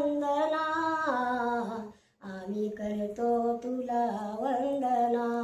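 An elderly woman singing a Marathi Bhim song alone, drawing out the words in long held notes that slide between pitches, with a short breath about two seconds in.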